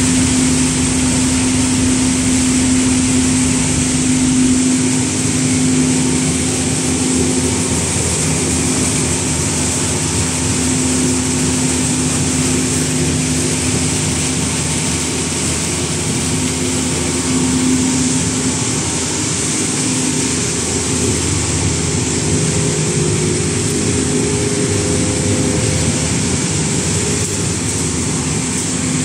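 Recycling line for used cement sacks running: steady machinery noise from conveyors and processing machines, with a constant low hum.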